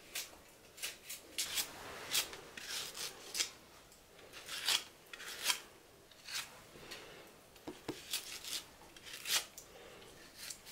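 Knife blade cutting slices off a hand-held peeled chayote: a string of short, crisp scraping cuts at an uneven pace of about one or two a second.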